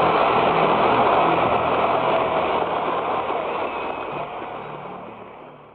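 A large audience applauding at the end of a speech, heard through an old recording with a narrow, dull sound. The applause fades out over the last two seconds.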